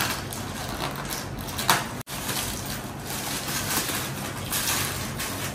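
Plastic packaging and bubble wrap rustling and crinkling as a parcel is unwrapped by hand, with a sharp crackle about a second and a half in.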